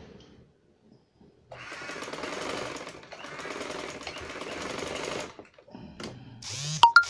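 Domestic sewing machine running steadily for about four seconds, starting about a second and a half in, as it stitches a neck band onto a shirt. Near the end, a second shorter run with a few sharp clicks.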